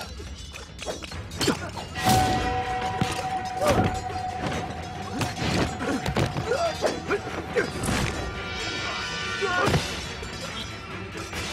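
Action-film soundtrack: dramatic music with a held note, overlaid by a rapid string of fight sound effects, sharp hits, thuds and crashes.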